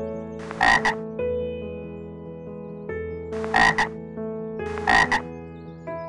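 A frog croaking three times, each call a quick double croak, over soft background music.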